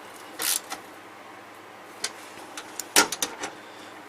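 Hand tools working on the bolts of a side-by-side's underside plate: a short scrape about half a second in, then a sharp click about three seconds in followed by a few quick smaller clicks.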